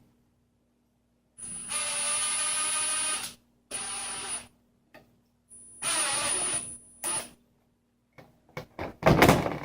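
Small electric screwdriver running in four short spurts, driving a 6-32 machine screw that self-taps into a motherboard mounting hole, followed by a few clicks and a louder rattle near the end.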